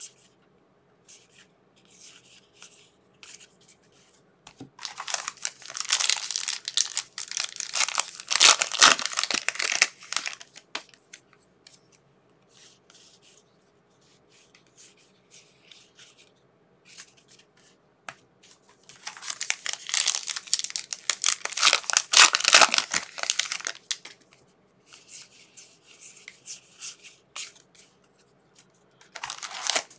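Trading card pack wrappers being torn open and crinkled by hand, in two long bouts of tearing and crinkling with quieter rustling between, and another bout starting near the end.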